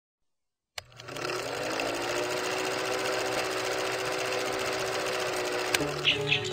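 Film projector sound effect running with a steady mechanical clatter under a film countdown leader. It starts with a click about a second in and cuts off with a click near the end.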